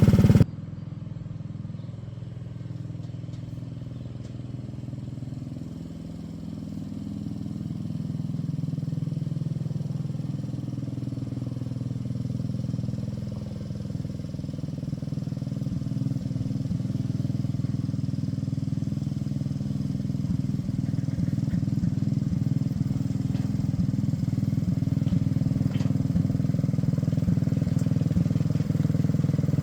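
Small engine of a light rail vehicle running steadily under throttle, getting gradually louder.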